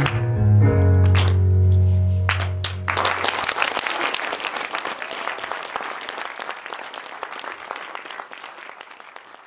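The song's instrumental accompaniment ends on a held final chord with a strong bass about three seconds in, then an audience applauds, the clapping fading away gradually.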